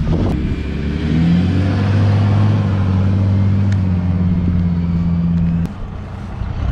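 Chevrolet S10 2.8 MWM diesel with a straight-through exhaust, revving hard as the pickup accelerates. The engine climbs about a second in, holds one loud steady note for several seconds, then drops off suddenly near the end as the throttle is let go.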